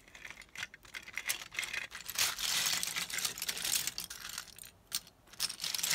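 Loose plastic LEGO bricks clattering and clicking against each other as a hand rummages through a large pile of them, busiest from about two to four and a half seconds in.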